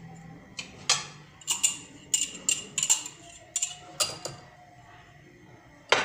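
A metal kitchen utensil clinking and tapping against ceramic cups and a bowl, about a dozen sharp clinks with a short ring. They stop for a moment, then a few more start near the end.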